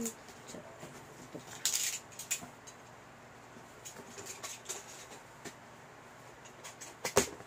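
Cardboard shipping box being worked open by hand: scattered scratching and rustling of fingers on the cardboard flaps, with a brief scraping rasp about two seconds in and a sharp knock near the end, the loudest sound.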